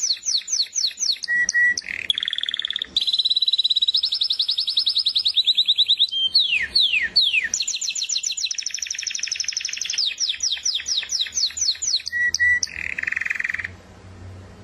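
Canary singing a long song made of series of rapidly repeated notes, fast falling chirps alternating with steady rolling trills, stopping near the end.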